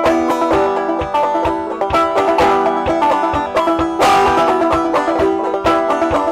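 Five-string banjo played clawhammer style in eEGBD tuning: a steady, even rhythm of struck notes and brushed strums with ringing drone strings.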